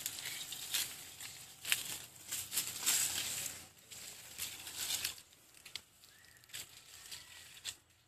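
Footsteps crunching and rustling through dry leaf litter, irregular crackles that are busiest in the first five seconds and thin out after.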